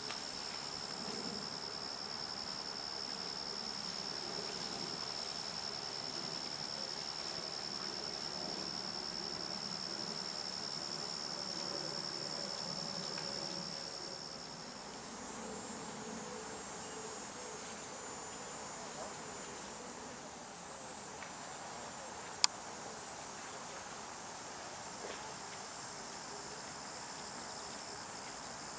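Steady high-pitched trill of insects in a summer marsh. One strong continuous tone drops away about halfway through, leaving a fainter, higher chorus. A single sharp click comes about three-quarters of the way through.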